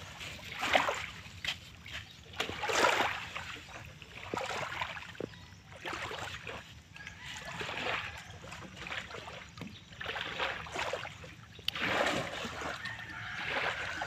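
Shallow seawater lapping and washing, in irregular swishes every second or two.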